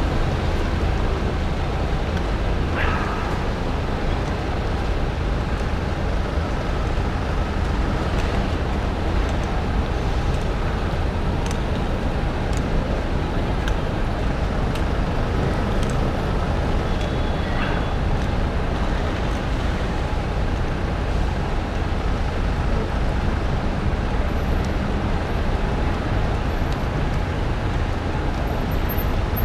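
Steady traffic and road noise heard from a bicycle riding on wet streets in the rain, with a deep rumble throughout and a few short clicks.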